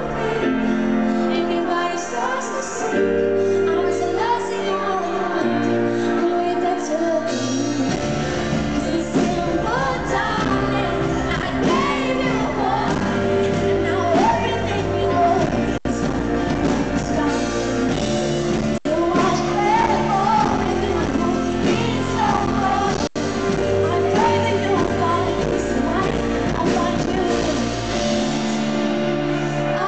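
Live pop music played by a band, with a woman singing over it in a large hall. A bass line comes in about eight seconds in, and the recording drops out briefly three times.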